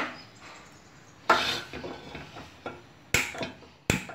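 Handling noises around a flat iron tawa on a gas stove: a knock at the start, a short scrape about a second in, and two sharp clicks near the end.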